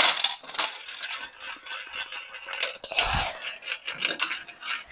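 Red plastic Dubble Bubble toy gumball machine being worked by hand: scraping and rattling from its dispensing knob and the gumballs, with a dull thump about three seconds in.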